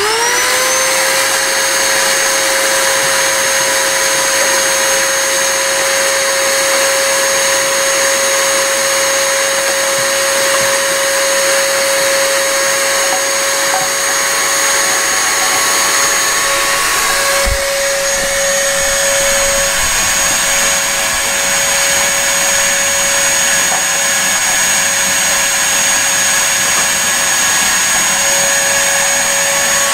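Vacuum cleaner switched on, its motor whine rising as it spins up, then running steadily with a loud whine and rushing air. Its hose is sucking ash and soot out of a small steam locomotive's smoke box, and the tone shifts slightly a little over halfway through.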